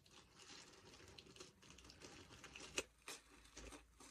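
Faint rustling and crinkling of paper packaging handled by hand, with a couple of sharp clicks about three seconds in.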